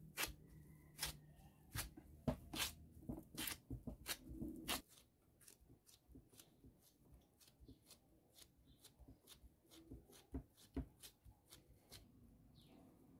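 A gloved hand pressing and patting soft potato dough flat on a plastic-wrap-covered board, making a run of crisp crinkly taps. The taps are loud and close together for the first five seconds or so, then softer and sparser.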